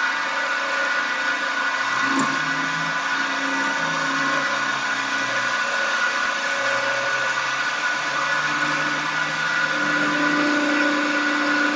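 CNC woodturning and milling machine for balusters running, its motors giving a steady whine, with lower tones that shift in pitch in steps.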